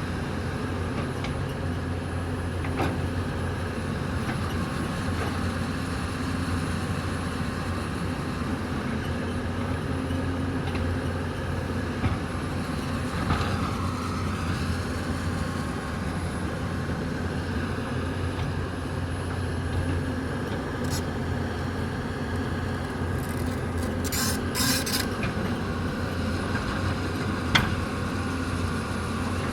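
Hyundai 220 crawler excavator's diesel engine running steadily at working speed, with a few sharp metallic clanks from the machine as it digs.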